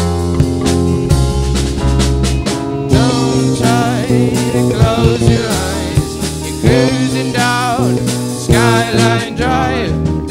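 Rock jam band playing live: electric guitars, electric bass, keyboard and drum kit, with a full, continuous sound.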